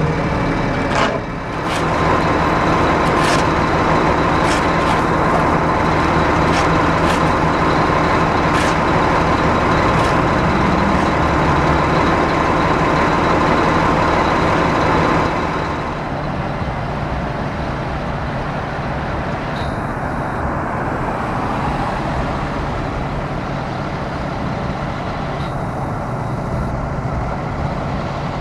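Heavy truck's diesel engine running close by, steady, with a thin high whine and light ticking over it. About halfway through it drops away to quieter traffic noise.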